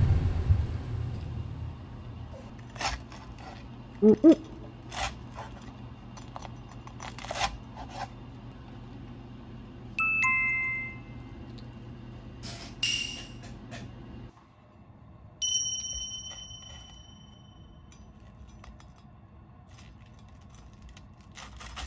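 Short crisp crunches and knocks as a deep-fried, panko-crusted layered pork cutlet is handled and cut on a bamboo cutting board, with a thud at the start. Two chime-like tones, edited-in sound effects, ring out partway through.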